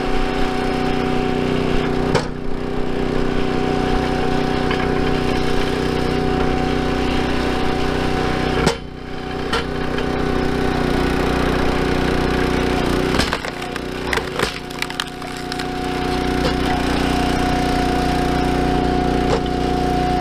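Engine of a RuggedMade 322 gas-powered hydraulic log splitter running steadily while the wedge drives through a round of firewood, the wood cracking and splintering as it splits. There is a sharp crack about nine seconds in, and a cluster of cracks a few seconds later as the engine takes the load.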